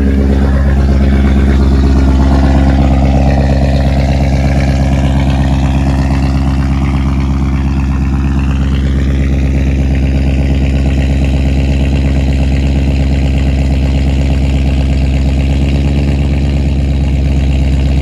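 BMW E39 540i's 4.4-litre V8 idling on a cold start through a de-catted exhaust: catalytic converters hollowed out and resonators removed, leaving it straight-piped. It is a loud, steady idle, a little louder in the first couple of seconds before it settles.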